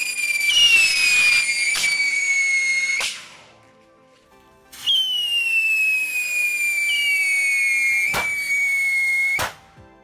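Whistling firework rockets strapped to toy tractors burning. Each gives a shrill whistle that slides slowly down in pitch, and a second whistle joins soon after. The first spell ends in a sharp crack about three seconds in; after a short gap, a second spell of whistles stops with cracks near the end.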